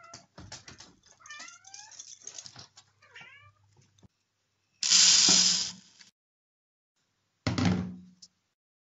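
A cat meowing: a run of short, chirping meows over the first three seconds or so. Then a water tap runs in two short bursts, the louder one about five seconds in and a briefer one near the end.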